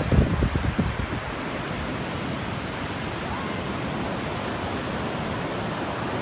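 Ocean surf breaking and washing up the beach in a steady hiss. Wind buffets the microphone with low rumbling gusts for about the first second, then eases.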